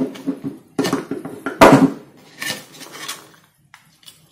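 A handful of sharp clicks and clinks from handling small ring magnets, metal pliers and the clear plastic cover of a Rubik's Clock on a hard acrylic board. The loudest knock comes about a second and a half in, and the sounds die away in the last second.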